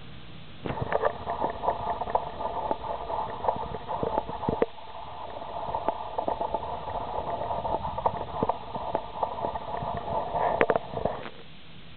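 Solid brass bell struck or knocked many times in quick, irregular succession, ringing throughout. The ringing stops about a second before the end.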